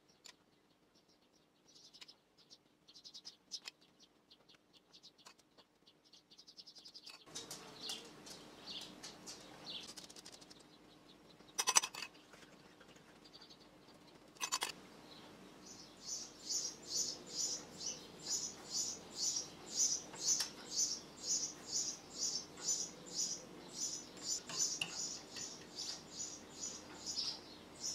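A small bird chirping steadily, one short high chirp about twice a second, through the second half. Before that come two sharp clinks of a metal spoon against a ceramic bowl.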